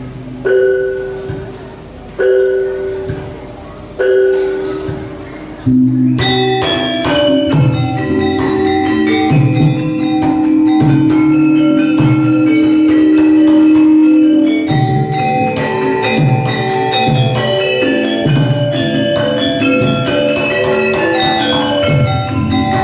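Javanese gamelan ensemble playing live. For the first few seconds single struck notes ring out and fade about every two seconds. About six seconds in, the full ensemble comes in with a dense ringing metallophone melody over deep, regularly repeated low strokes.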